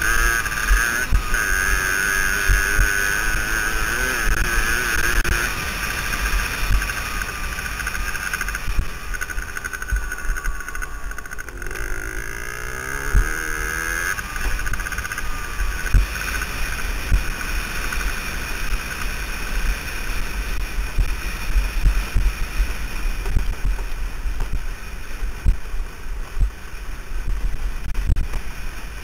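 Suzuki DS80 dirt bike's small two-stroke single-cylinder engine running under way on a gravel track, its pitch shifting up and down around the middle. Wind buffets the helmet-mounted microphone throughout with constant low thumping.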